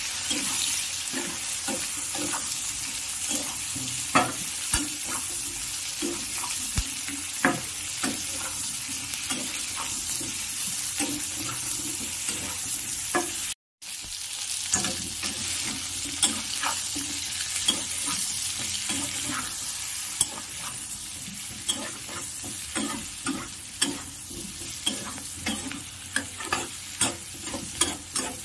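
Jackfruit pieces with onion and chilies sizzling in oil in a metal wok, with a spatula stirring and scraping and knocking against the pan. The sound cuts out for a moment about halfway through, then the frying and stirring carry on.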